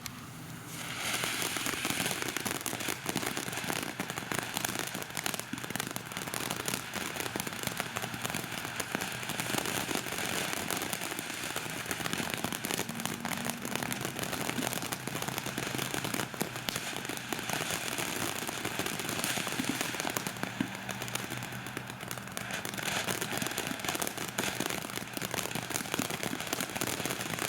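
Ground fountain firework (TNT Blossoming Flowers) burning: a steady spraying hiss thick with rapid crackling, starting up about a second in.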